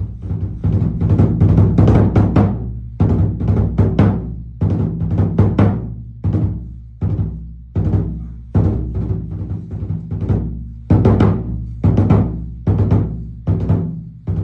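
Kagura taiko drum beaten in a steady rhythm, about two strokes a second, each stroke ringing on deep and low.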